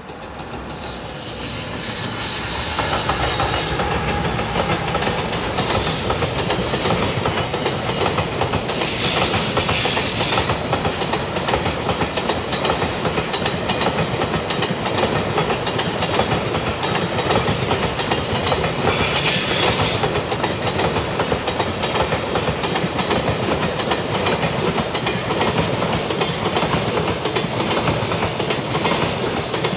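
JR Freight container train, an EF210 electric locomotive hauling a long string of container flat wagons, passing close by at speed. It is a loud, steady rush and clatter of wheels on rails that builds up over the first two seconds, with high-pitched hiss from the wheels coming and going every several seconds.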